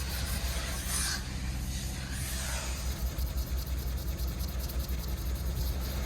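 A rag scrubbing back and forth on the skid loader's painted panel with paint thinner, in soft hissing swishes, over a steady low rumble.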